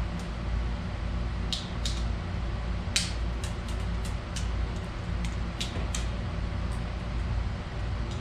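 A string of sharp clicks and snaps from hand tools and plastic wiring parts being handled, about ten in all, the loudest about three seconds in, over a steady low hum.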